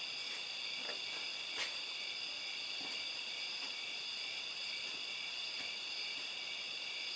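A steady high-pitched whine, as from electrical equipment, held evenly throughout, with a few faint clicks as a small metal engine model is handled.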